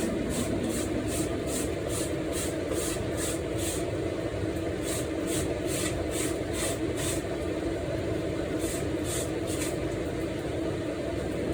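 Kitchen cooking sounds: a steady whooshing hum with short, high scraping strokes repeating about two to three times a second, pausing around seven seconds in and returning briefly.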